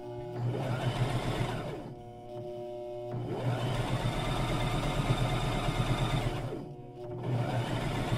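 Electric sewing machine running in three bursts of rapid stitching, with short pauses about two seconds in and again near seven seconds.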